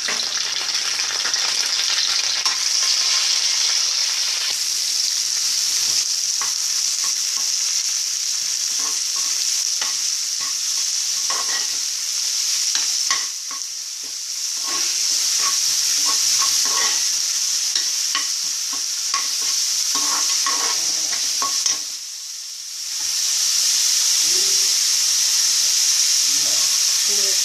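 Whole spices and curry leaves sizzling in hot oil in a pan, with a spatula scraping and tapping as they are stirred. The sizzle drops away briefly twice, about halfway through and again near the end.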